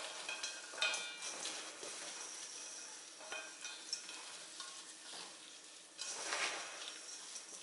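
Kitchen prep sounds: food being stirred and scraped in a bowl with a utensil, with scattered clicks and a short ringing clink about a second in, and a louder stretch of scraping about six seconds in.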